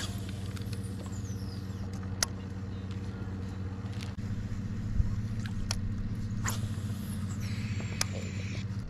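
Steady low hum of a bass boat's bow-mounted electric trolling motor running, with a few sharp clicks over it.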